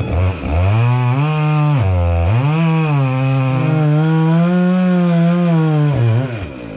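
Two-stroke gas chainsaw bucking a log: it revs up about half a second in, dips briefly near two seconds in, then runs high and steady through the cut before dropping off near the end.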